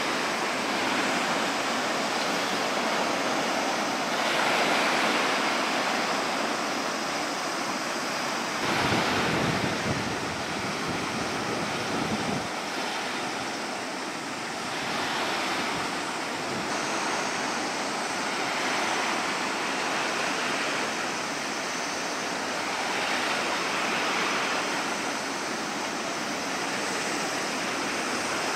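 Choppy sea and wind: an even wash of waves that swells and eases every few seconds. Wind rumbles on the microphone for a few seconds from about nine seconds in.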